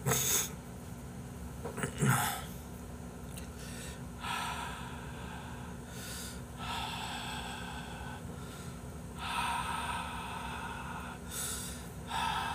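A man huffing breath onto his eyeglass lenses to fog them for wiping: about four long breathy exhales of a second or two each, after a short sharp breath sound at the start and another about two seconds in.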